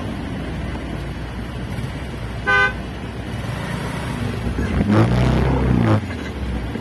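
A vehicle horn gives one short beep about two and a half seconds in. Near the end an engine revs up and holds for about a second before dropping away, over steady traffic noise in slow, congested traffic.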